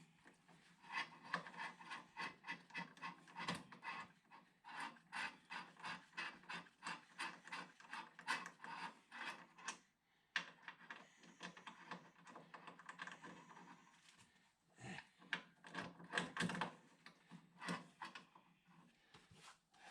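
Light mechanical clicking in quick runs of about three or four clicks a second. It breaks off briefly about ten seconds in, then comes back in scattered runs.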